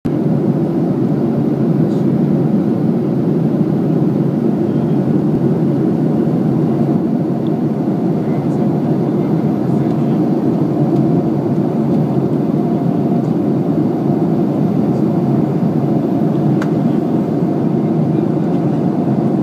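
Steady, loud engine and airflow noise of a WestJet airliner on approach, heard from inside the passenger cabin: a deep even rumble with a faint steady hum above it.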